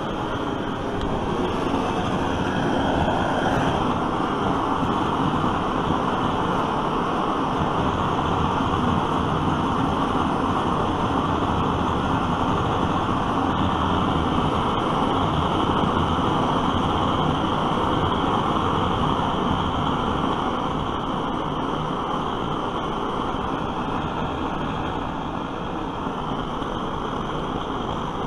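A pressurised torch flame burning with a steady rushing noise, a little louder from a few seconds in until about two-thirds of the way through.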